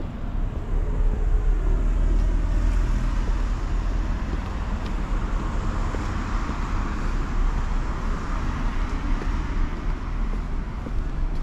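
Road traffic noise from cars going by on the street alongside, a steady rush with a low rumble that swells somewhat in the middle.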